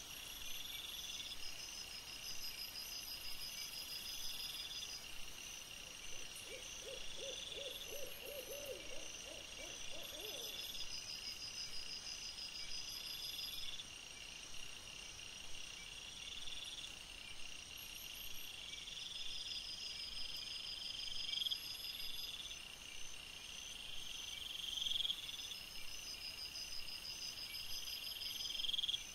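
Night insects chirping in high trills that repeat every couple of seconds. About six seconds in, an animal gives a short run of low, rapidly repeated notes for about four seconds.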